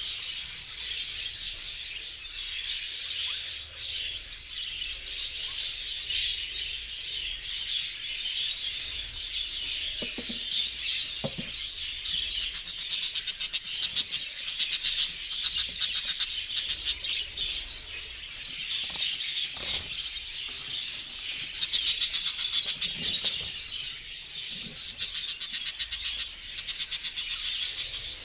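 A flock of budgerigars chattering and chirping continuously. Louder bursts of fast, rattling chirps come about halfway through and again near the end.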